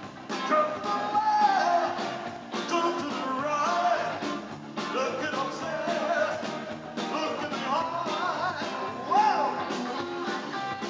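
Live rock band playing: a man singing into a microphone over electric guitars and a drum kit.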